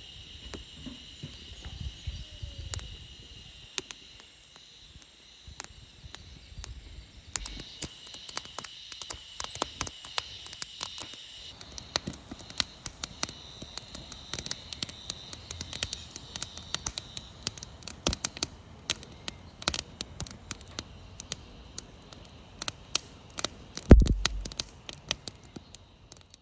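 Wood campfire crackling and popping with many sharp snaps, busier after about seven seconds, over a steady high chirring of insects. A loud low thump near the end.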